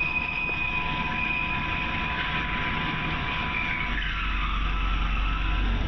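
CNC mill drilling a hole in a flat steel bar under flood coolant: a steady cutting squeal with a high tone that slides lower about four seconds in, as a low rumble joins.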